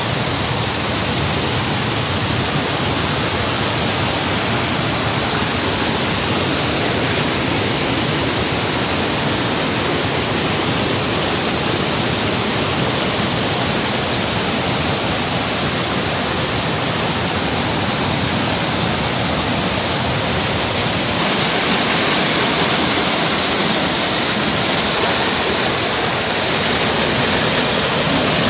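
Rushing water of a stream or waterfall, a steady loud roar that grows a little louder and brighter about twenty seconds in.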